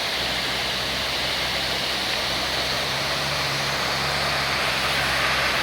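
Waterfall rushing in a steady, loud roar, with a low steady hum underneath.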